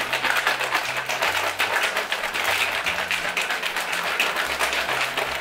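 Plastic shaker bottle being shaken hard to mix a powdered drink mix into water: a fast, continuous rattling and sloshing with no break.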